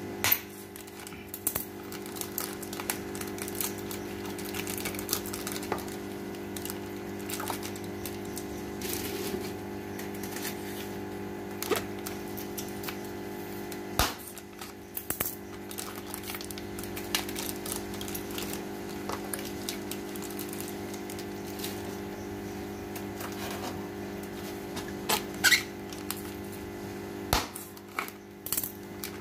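Scissors snipping and hands handling a plastic fish-shipping bag: scattered sharp clicks and plastic crinkling, over a steady low hum.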